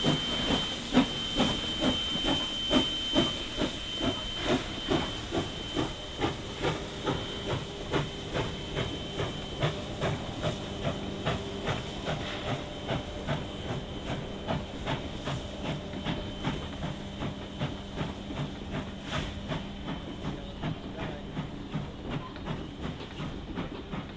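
NSWGR 59 class steam locomotive 5917, a 2-8-2, pulling away with its train: steady exhaust chuffs that quicken from about two to about three a second as it gathers speed, over a hiss of steam venting from the cylinder drain cocks. The sound fades as it draws away.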